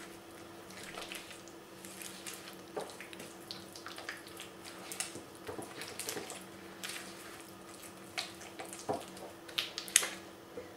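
Silicone spatula stirring a thick butter, sugar and grape molasses mixture in a glass bowl: irregular soft wet squelches and scrapes against the glass, over a faint steady hum. A sharper knock comes near the end.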